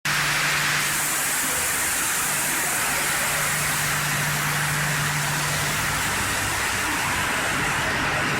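Log multi-blade rip saw running: a steady machine hum under a broad, even hiss, with the hiss getting brighter about a second in.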